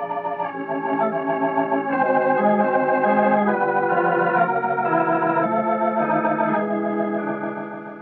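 Background organ music: sustained chords under a slowly moving melody, fading out near the end.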